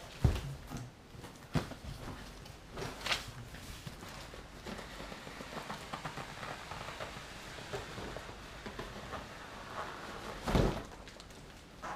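Cardboard box and packing being handled during an unboxing: a sharp thud right at the start, two more about a second and a half apart, then quieter rustling and scraping, and another thud near the end.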